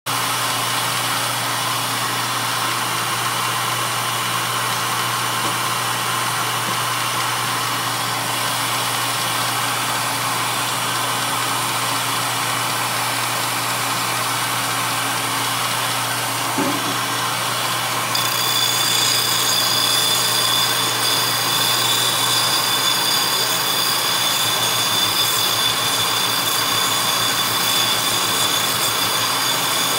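Stationary disc sander running with a steady motor hum. About eighteen seconds in, the edge of a wooden barrel head is pressed against the sanding disc, adding a louder sanding hiss with a high whine as the edge is smoothed and trimmed down.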